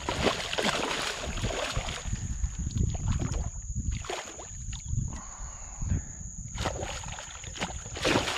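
Hooked redfish thrashing and splashing at the water's surface beside a kayak, in irregular bursts of splashes and knocks.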